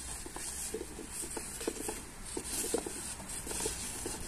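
Paper cups being shuffled across a wooden tabletop: a run of quick, irregular light taps and scrapes.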